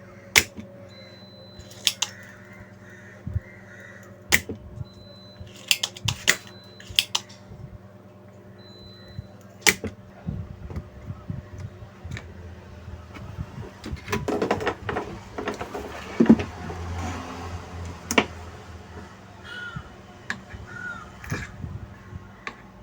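Scattered sharp clicks, taps and light clatter of small tools and screws being worked on an audio amplifier board while the faulty amplifier ICs are unscrewed from their heat sink. The clatter gets busier for a few seconds past the middle. A faint steady hum runs underneath.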